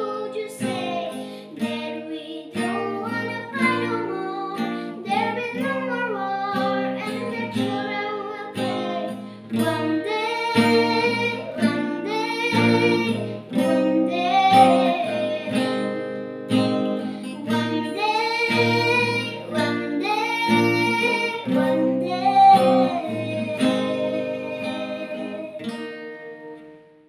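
A girl singing a song, accompanied by a strummed ukulele and an acoustic guitar; the music fades out near the end.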